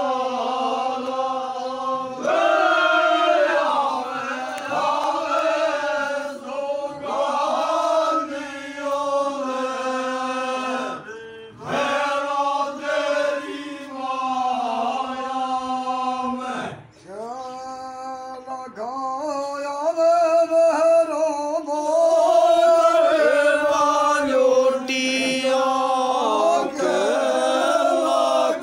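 A group of men chanting a devotional song to Bhairon Baba in long held notes, pausing briefly twice.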